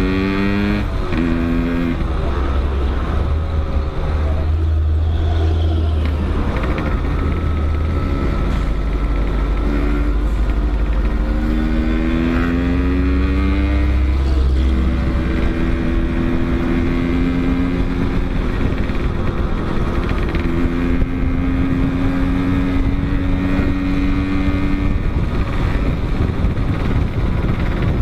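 Motorcycle engine with an aftermarket packed exhaust, riding and revving up through the gears: the pitch climbs and drops back at each shift in the first half, then holds steadier at a cruise. Heavy wind rumble on the bike-mounted microphone for roughly the first fifteen seconds.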